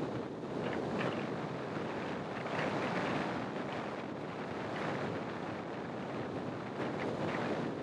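Wind rushing over the microphone of a small camera mounted outside a moving car, mixed with road and tyre noise, swelling and easing in uneven gusts.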